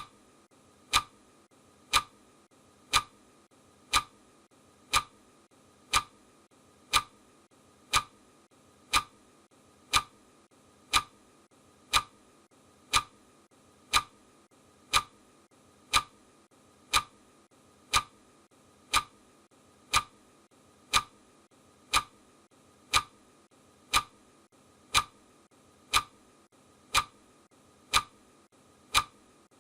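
Clock ticking once a second at a steady, even pace: the ticking sound effect of a countdown timer.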